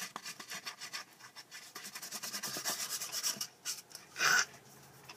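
Black felt-tip marker scribbling back and forth on a cardboard toilet-paper tube, a quick run of scratchy rubbing strokes. About four seconds in comes one short, louder rustle, then the scribbling stops.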